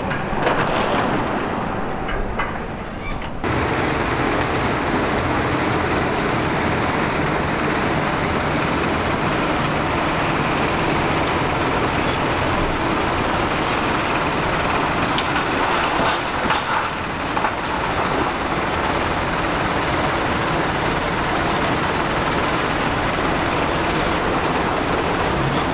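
Heavy diesel demolition machinery running: a steady engine drone under continuous noise, which changes abruptly to a different, steadier mix about three seconds in.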